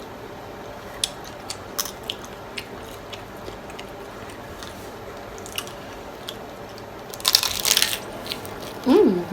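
Close-miked chewing with scattered small mouth clicks, then about seven seconds in a loud crunchy bite into a taco shell lasting under a second. A short hummed voice sound comes right at the end.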